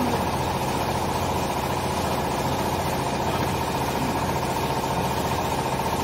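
Steady drone of running machinery, with a fast, even pulsing and a constant hum.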